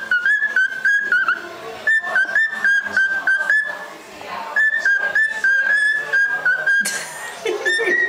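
Cockatiel whistling its song: three phrases of short, steady notes stepping up and down in pitch, with brief pauses and sharp clicks between the notes. A brief hiss comes near the end.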